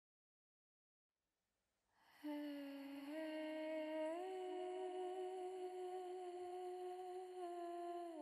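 Near silence for about two seconds, then background music starts with a single held, wordless humming tone that steps up in pitch twice and slides back down near the end.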